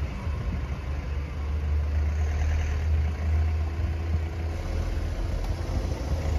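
A car engine idling with a steady low hum while the level-crossing barrier booms are raised. Faint steady tones join it about four and a half seconds in.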